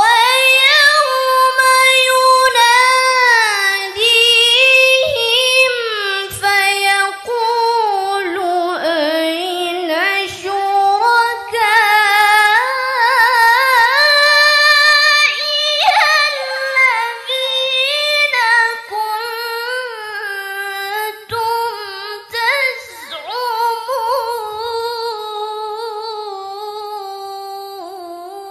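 A woman's voice reciting the Quran in the melodic tilawah style, with no instruments. It is one long unbroken phrase with rippling ornaments, its pitch wandering up and down, growing gradually softer in the second half.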